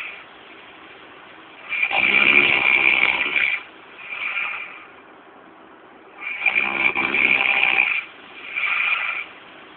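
Snoring in a slow breathing rhythm: twice, a long loud snore of nearly two seconds followed by a shorter, quieter one.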